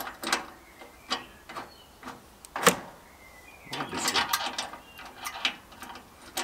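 Irregular metallic clicks and scrapes of a hand wrench tightening the self-locking nut on a caster wheel of a stone saw's frame, with one sharp click about halfway through.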